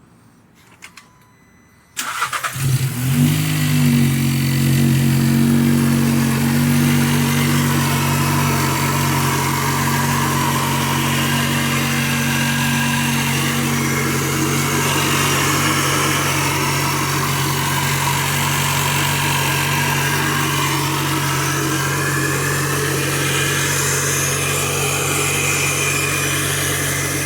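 2017 VW Jetta's EA211 1.4-litre turbocharged four-cylinder engine starting about two seconds in, flaring briefly in revs and then settling into a steady idle on fresh oil just after an oil change.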